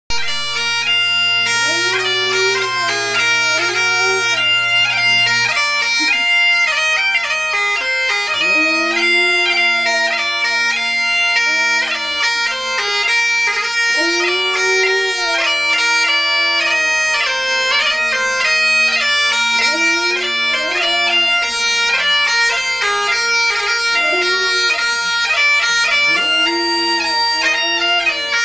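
Bagpipes playing a tune over their steady drones, with a husky-malamute cross howling along again and again in long howls that rise and fall in pitch.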